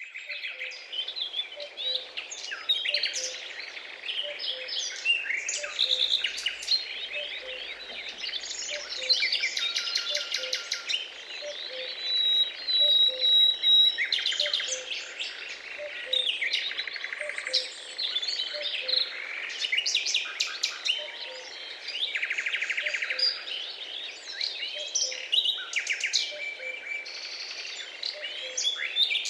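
A flock of small birds chirping and calling together, dense overlapping chirps, trills and short whistles, with a soft low note repeating about once a second underneath.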